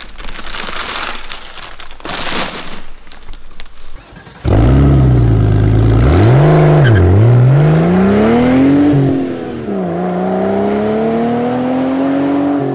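Plastic wrapping crinkling, then a car engine cuts in loudly about four and a half seconds in. It revs up and down twice, then climbs steadily in pitch.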